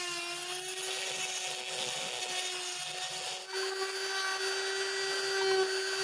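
Electric oscillating cast saw running with a steady whine as its round blade cuts through a plaster cast on a forearm.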